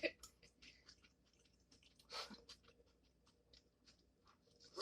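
Faint eating sounds: soft wet clicks and smacks of someone chewing food close to the microphone, one a little louder about two seconds in.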